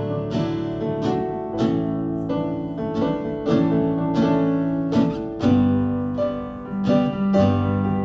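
Instrumental music with no singing: acoustic guitar chords strummed about twice a second.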